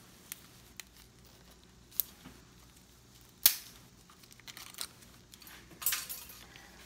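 Sharp clicks and snaps of small plastic parts as an HID headlight bulb and its socket and wiring are handled in gloved hands; the loudest snap comes about three and a half seconds in, with light crinkly rustling near the end.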